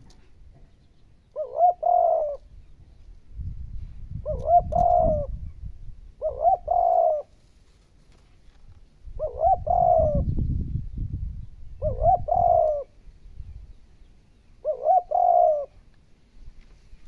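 Spotted dove singing its cooing song: six separate coo phrases of about a second each, a few seconds apart. A low rumble sits under several of the phrases.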